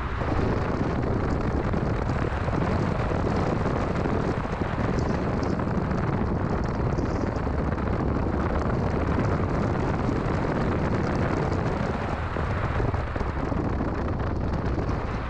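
2006 Mini Cooper S on the move: steady engine and road noise with a heavy low rumble.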